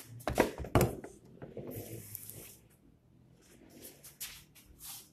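Two loud knocks within the first second as a plastic squeeze bottle of white wood glue is handled against an MDF cabinet. Short hissing, spluttering squirts follow as glue is squeezed from the bottle's nozzle.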